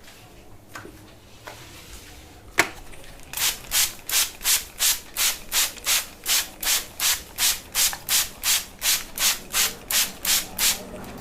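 Fingers scratching briskly through hair and scalp in an even rhythm, about two and a half strokes a second. It starts a little after a single sharp click about two and a half seconds in.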